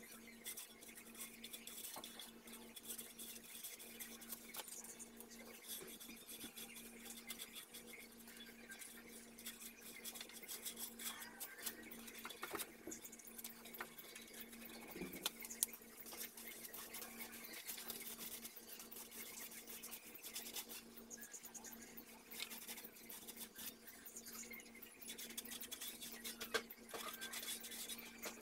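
Paintbrush bristles stroking enamel paint onto a wooden board: a continuous scratchy swishing of repeated brush strokes over a faint steady hum, with one sharp tap about halfway through.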